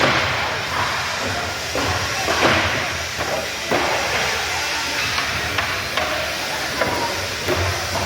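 Carpentry work noise: sharp hammer-like knocks over a hissing haze and a steady low hum.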